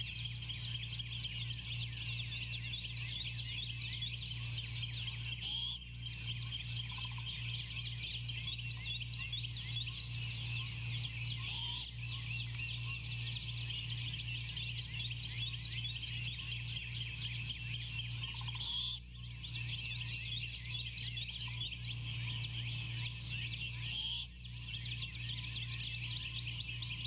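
Many small songbirds chirping and singing at once in a dense dawn chorus, over a steady low hum.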